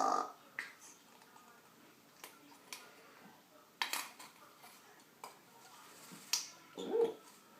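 African grey parrot belching: a short, low burp near the end, the loudest sound here. Scattered sharp clicks come in between.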